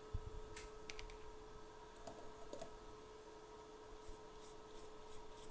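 Faint small clicks and taps from handling an iPhone logic board with tools at the bench, turning into a quicker run of light clicks about four seconds in. A steady faint electrical hum runs underneath.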